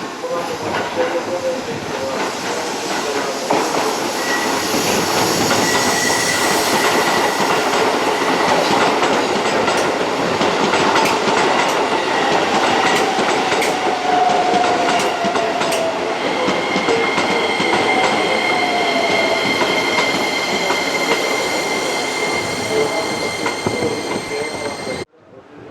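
Keisei Line electric train running alongside the platform at close range: steady rumble and rail clatter, with clicks over the rail joints and a thin squeal from the wheels. The sound cuts off abruptly near the end.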